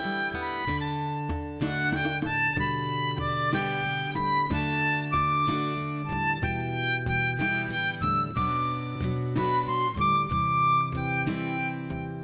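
Instrumental background music: a melody of short held notes moving over low sustained bass notes.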